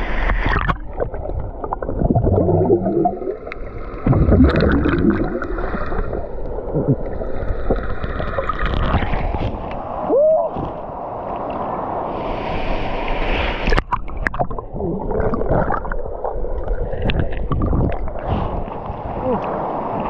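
Water sloshing and gurgling against a handheld action camera held at the surface by a swimmer, with irregular splashes.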